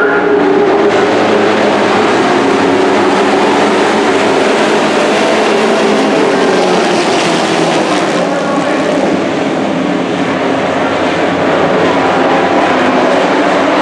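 A pack of dirt-track race trucks' engines running together around the oval, loud and steady, their pitch rising and falling slightly as the trucks pass.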